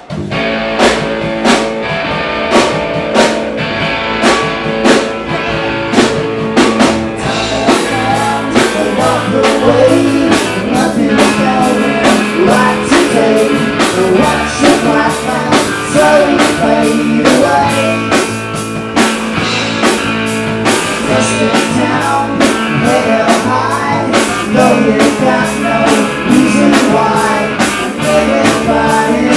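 Live rock band playing loud: electric guitar through a Marshall amp, bass and drum kit, with a man singing into the microphone. The cymbals come in thick and constant about eight seconds in.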